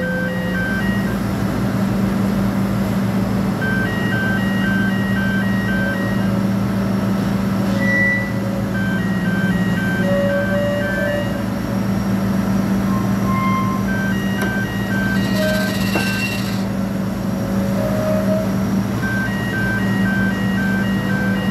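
Sany 600-ton crawler crane's diesel engine running steadily, with the crane's motion warning alarm sounding in repeated bursts of quick electronic beeps about every five seconds. A brief hiss about two-thirds of the way in.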